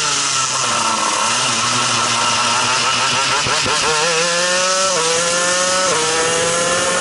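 Shifter kart's two-stroke engine under hard driving: the revs fall off into a corner, then climb again about three and a half seconds in. Two upshifts follow about a second apart, each dropping the pitch suddenly before it rises again.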